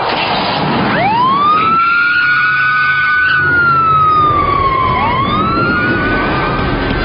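Police car siren wailing: it winds up about a second in, holds, slowly falls, then winds up again about five seconds in.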